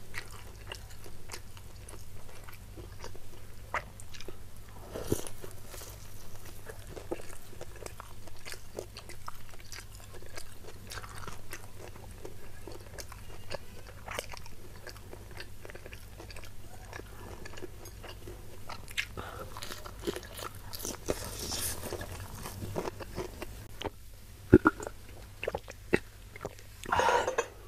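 Close-miked eating of a fried battered fritter (gorengan) dipped in sambal: biting and chewing with crunchy, clicking mouth sounds throughout. A few sharper, louder bites come near the end.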